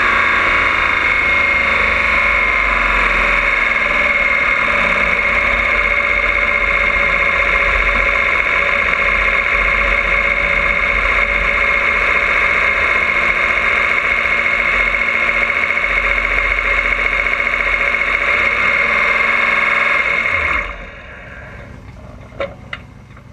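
Injected drag-racing engine with open zoomie headers running steadily at low speed, with a constant high whine over it. About 20 seconds in it is shut off and winds down, followed by a few sharp clicks.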